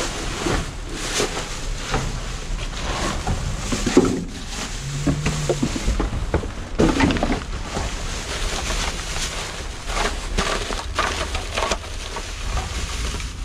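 Trash being rummaged through in a dumpster: irregular rustling, crackling and knocks of bags, cardboard and loose items being handled, over a steady low rumble.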